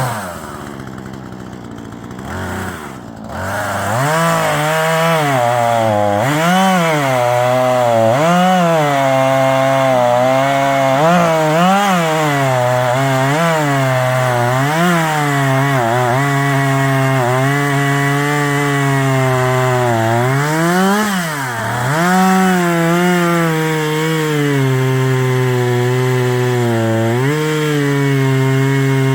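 Husqvarna 440e two-stroke chainsaw running: quieter for the first few seconds, then revved up at about four seconds and held at high speed while cutting wood, its pitch dipping and recovering every second or so.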